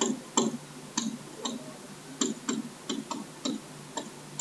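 Stylus tip tapping against a tablet screen during handwriting: about a dozen short, irregularly spaced clicks.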